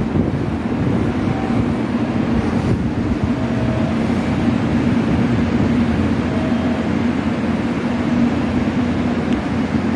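Steady low hum and rumble beside a standing JR Kyushu 813 series electric train with its doors open, with faint brief tones now and then.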